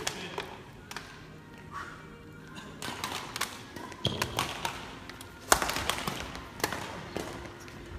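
Badminton rally: rackets striking the shuttlecock in a string of sharp cracks, the loudest about five and a half seconds in.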